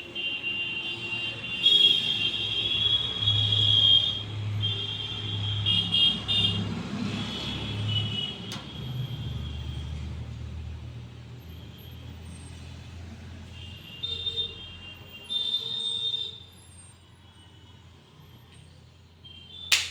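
Road traffic: vehicle horns sounding again and again over a running engine's steady hum, louder in the first half. A single sharp click comes near the end.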